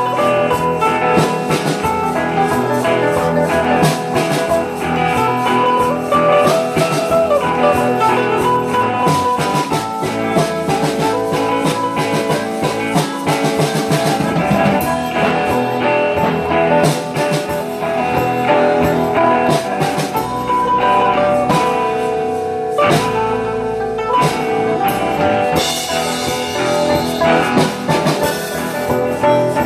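Live band playing an instrumental passage, with electric and acoustic guitars and a mandolin over a steady beat.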